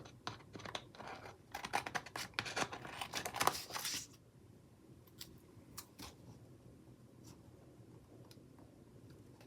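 Small scissors snipping through sticker paper, a quick run of cuts for about four seconds, then a few faint ticks of paper handling.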